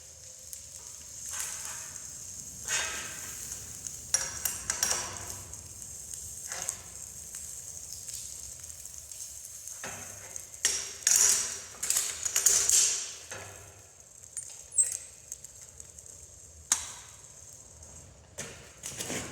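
Gas forge burner hissing steadily, with irregular metallic clatter and scraping as steel bar and tools are handled. The clatter is loudest in a cluster about halfway through.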